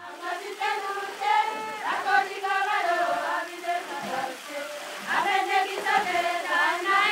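Soundtrack music of voices singing together, a choir-like chant with long, wavering sung notes.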